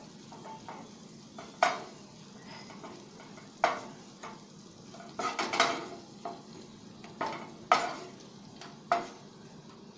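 Spatula knocking and scraping against a non-stick kadai while fried cashews and raisins are scooped out of hot ghee: a run of sharp knocks every second or so, over a faint sizzle of the ghee.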